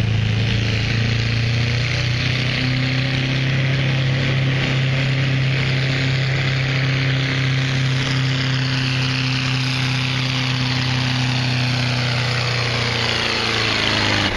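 A White 1470 pulling tractor's diesel engine running flat out under full load as it drags the sled, a loud, steady drone. Its pitch sags over the last few seconds.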